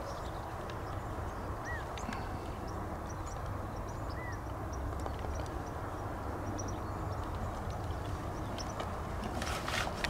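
Wind buffeting the microphone outdoors: a steady rumbling hiss. Two short high chirps come through it, about two and four seconds in.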